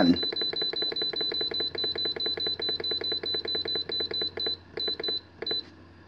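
Alpicool C20 portable fridge's control panel beeping in a fast, even run of short high beeps as the minus button is held and the set temperature steps down. Near the end come a few separate beeps, then it stops.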